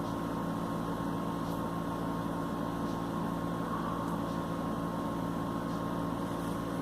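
Steady mechanical hum of a running appliance, an even drone with a few constant tones, with some faint ticks.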